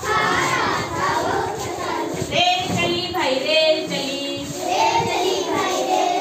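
Children singing together in short sung phrases.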